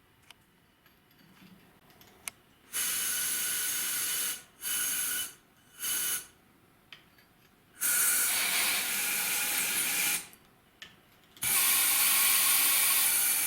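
Compressed air hissing in five bursts, the longer ones a couple of seconds each, with small clicks between them. It is an air pressure leak test on the valves of a removed cylinder head, and the valve is letting air through.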